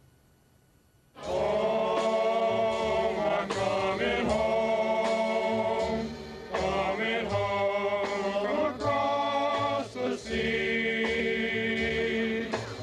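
A group of men singing together, held sung notes with short breaks between phrases, starting about a second in after near silence; the line sung is about going home.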